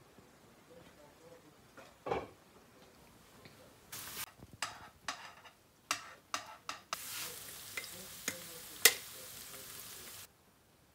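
Diced vegetables frying in a steel pan, a spoon scraping and tapping the pan as they are stirred, then a steady sizzle that cuts off abruptly near the end. One sharp tap on the pan just before the sizzle stops is the loudest sound, and there is a single dull knock about two seconds in.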